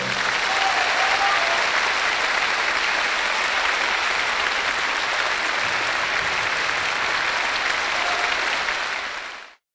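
Large audience applauding steadily once the orchestral music ends, then cutting off abruptly near the end.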